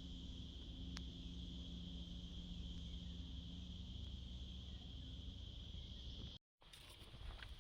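Steady, high-pitched drone of an insect chorus over a low rumble, cutting out completely for a moment near the end.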